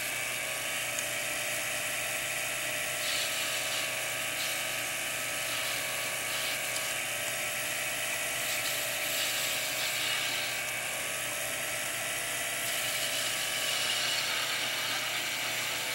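Jeweler's lathe running with a steady small-motor whine whose pitch wavers slightly, while a hand graver cuts the spinning brass stock.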